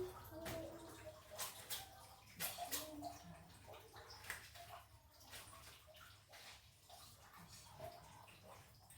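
Water splashing and sloshing in a tub or basin, in irregular short splashes that thin out over the second half.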